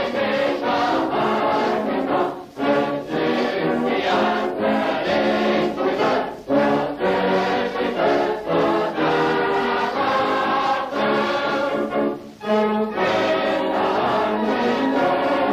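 Choral background music: a choir singing in long held phrases, with short breaks between the phrases.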